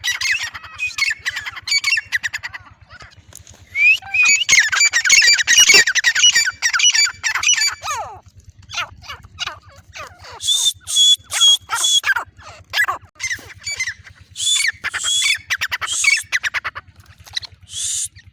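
Female grey francolin calling in bouts of rapid, shrill, repeated notes, densest and loudest about four to eight seconds in.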